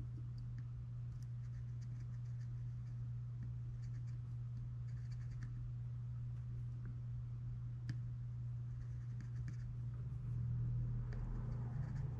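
Faint scratching and light ticks of a soldering iron tip working solder onto the pads of a drone ESC board, pre-tinning them, over a steady low electrical hum.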